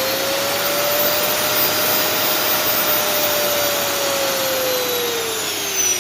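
Motor of an opened-up 1600 W vacuum cleaner running with a steady rush of air and a whine. The whine holds at its highest pitch, then falls from about four seconds in as the rotary speed control on its triac board turns the motor down.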